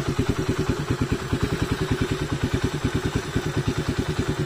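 Freshly reassembled Bajaj Wind 125 single-cylinder four-stroke engine idling steadily in the motorcycle, an even putter of about ten beats a second.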